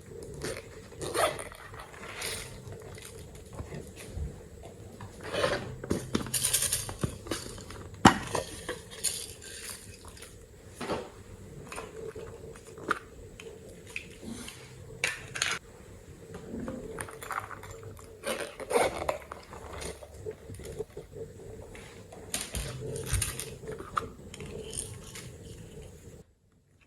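Slime being mixed in a container: irregular sticky clicks, squelches and scrapes, with a utensil clinking and scraping against the container. The sound stops abruptly near the end.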